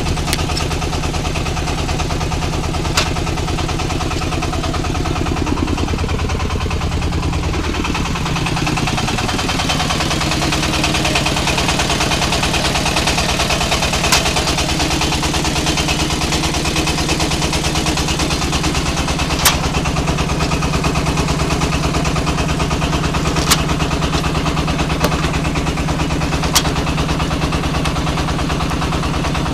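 Engine-driven red-brick moulding machine running steadily. Its pitch drops between about six and nine seconds in, then holds. A handful of sharp knocks stand out over the running.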